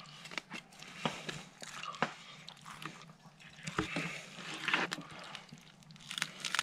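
Knife sawing through the crisp crackling of a spit-roasted rolled pork shoulder, giving irregular crunches and crackles.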